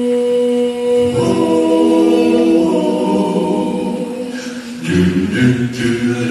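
Mixed vocal quartet, one woman and three men, singing a cappella in close harmony. A held chord moves to a new chord about a second in, and a fresh phrase begins near the end.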